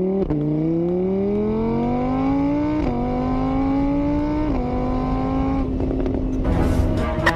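Engine sound effect of a motor vehicle accelerating through the gears. The pitch climbs, drops sharply at each of three shifts, then holds steady for the last couple of seconds.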